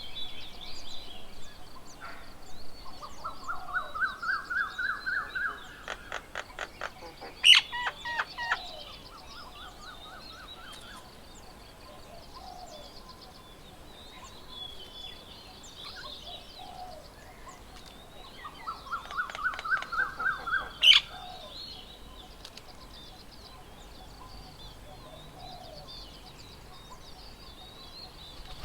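Birds calling around a garden bird table: twice, a series of about a dozen short whistled notes that climb steadily in pitch, with other chirps scattered between. Two sharp clicks, the loudest sounds, come about a third of the way in and again about three quarters of the way in.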